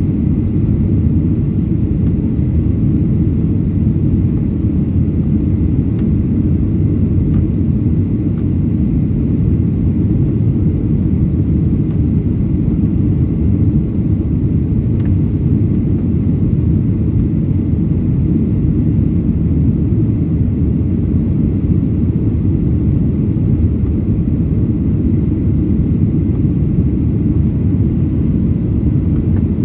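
Jet airliner climbing after takeoff, heard inside the cabin: the steady, even rumble of the engines and rushing air.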